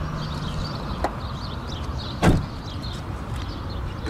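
A car door, on the 1996 Toyota Crown, shut with one heavy thump about two seconds in, after a light click about a second earlier.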